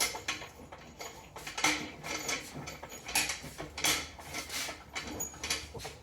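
Irregular metal clinks and knocks from a car jack being moved about and set under the vehicle while a lifting point is sought.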